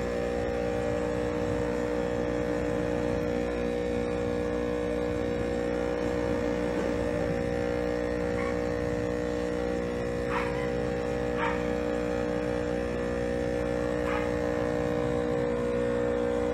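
Steady electric hum of an aquarium air pump running the tank's sponge filters. A few short, higher sounds break in around the middle.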